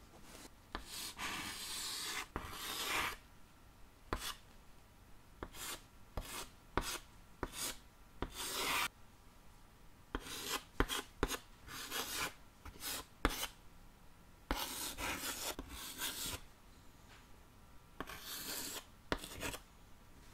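Chalk writing on a small chalkboard: scratchy strokes of varying length and sharp taps, in uneven bursts with short pauses.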